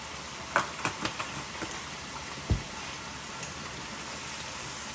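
Potatoes with peppers and onions sizzling steadily as they fry in a pan, with a few light clicks in the first two seconds and a single low thump about halfway through.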